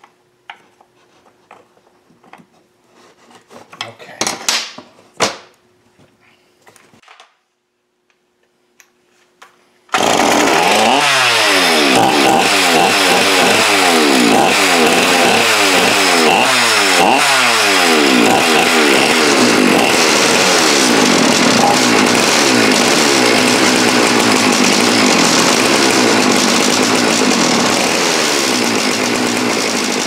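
Clicks and a couple of sharp knocks from handling a chainsaw. About ten seconds in, the saw's two-stroke engine starts suddenly and runs loudly and steadily, its tone wavering up and down over and over, easing off slightly near the end. The saw is firing and running again after its loose parts were tightened.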